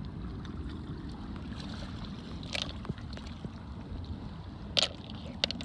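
A steady low rumble of wind and water on the beach, broken by a few short sharp clicks of seashells knocking together as they are picked up, about halfway through and twice near the end.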